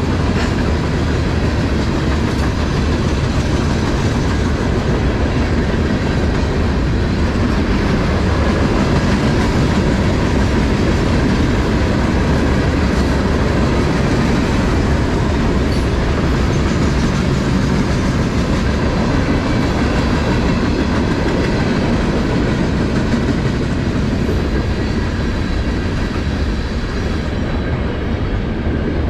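Freight cars (gondolas and covered hoppers) of a mixed freight train rolling past at close range: a steady rumble of wheels on rail with clickety-clack from the rail joints.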